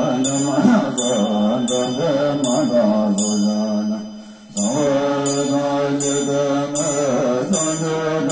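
A group of voices chanting Tibetan Buddhist liturgy in unison from their texts, in long held tones, with a brief drop for breath about four seconds in. Over the chant, a bright metallic ring is struck in a steady beat, about once every three quarters of a second.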